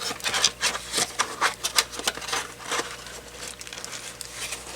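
Box packaging being handled as a phone cradle and its AC adapter are pushed back into it: irregular crinkling, rubbing and light knocks.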